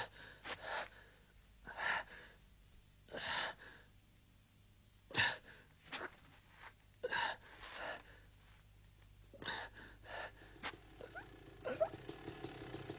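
A man's heavy, ragged gasps for breath, one sharp gasp every second or so. They are the breathing of an exhausted rider down on his hands and knees.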